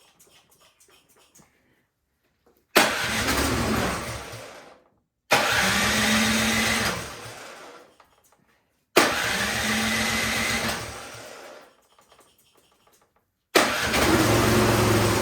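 Troy-Bilt snowblower engine started on its electric starter four times; each time it fires and runs for about two seconds, then dies away. Firing but dying, which the mechanic takes for a carburetor problem.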